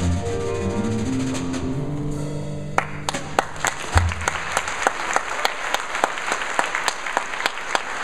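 Jazz trio of piano, electric bass and drums letting the final chord of a tune ring out, then audience applause breaking out about three seconds in and carrying on.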